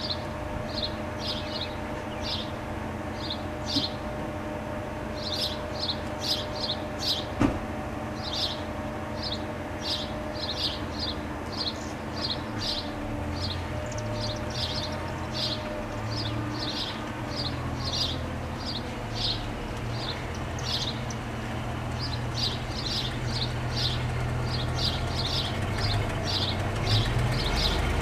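Federal Signal STL-10 siren's rotor still coasting in its very long winddown after the blast: faint low tones slowly sliding down in pitch. Birds chirp rapidly and repeatedly over it, and a low rumble builds in the second half.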